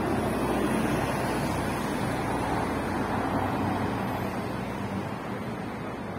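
Traffic on a multi-lane highway: a steady rush of tyre and engine noise, loudest in the first few seconds as a double-decker bus passes close by, then easing off as the cars thin out.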